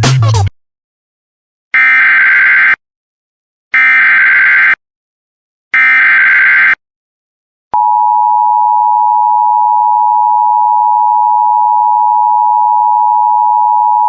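Emergency Alert System header: three one-second bursts of warbling digital data tones, about a second apart. They are followed by a steady, loud attention tone near 1 kHz that announces a severe thunderstorm warning.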